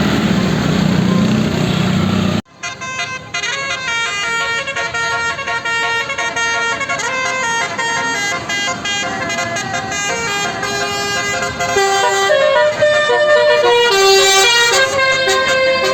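Bus 'telolet basuri' musical air horn playing a quick melody of short changing notes, some held longer near the end. It is preceded by about two seconds of loud, dense noise that cuts off abruptly.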